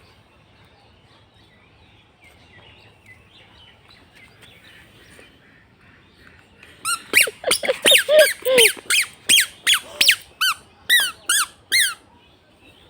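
A bird squawking: a rapid series of about fifteen short, downward-sliding calls, about three a second, starting a little past halfway and stopping just before the end.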